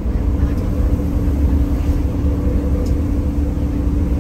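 A moving bus: a steady low rumble of engine and road, with a steady hum that sets in just after the start.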